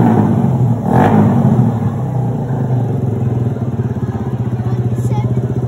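Motorcycle with a loud exhaust pipe, its revs sinking back to idle, with a short blip about a second in. It then settles into a loud, lumpy idle with a fast, even beat.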